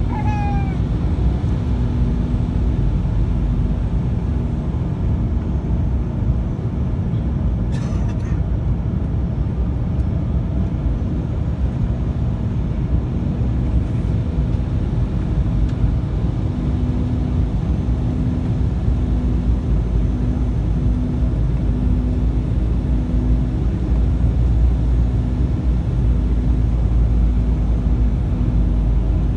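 Cabin noise from a window seat beside the wing of an Embraer E195's GE CF34-10E turbofan on approach: a steady rumble of engine and airflow. A low hum pulses on and off through the second half.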